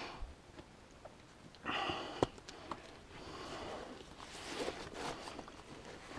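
A hiker breathing hard while scrambling up rock, a few loud breaths, with one sharp scuff of a boot on the rock about two seconds in.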